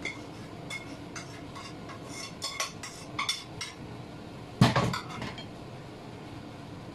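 Cookware clinking and knocking as food is moved from a frying pan into a cooking pot: a run of quick utensil clinks against the pans, then one loud metal clank a little past halfway.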